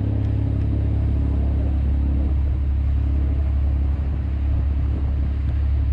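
Party fishing boat's engine running steadily underway, a loud, even low hum, with the hiss of the wake rushing along the hull.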